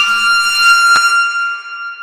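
Eerie sound-design patch from the EERIE 2 Kontakt sample library: a cluster of steady, high, ringing tones over a hiss, with a sharp hit about a second in, then fading.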